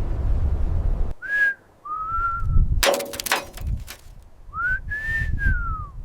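Whistling: a short high note, then a longer slightly rising-and-falling one, and near the end a long note that rises and then falls away. The whistles sit over a low wind-like rumble, with a brief burst of clatter about halfway through.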